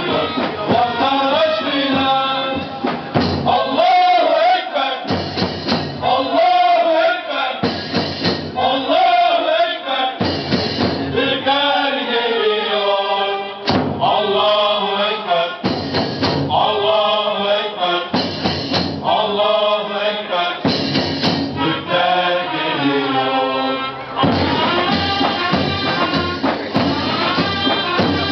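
Ottoman mehter band playing a march: a men's chorus sings phrase by phrase over davul drums, clashing cymbals and shrill horns. Near the end the voices drop out and the instruments carry on.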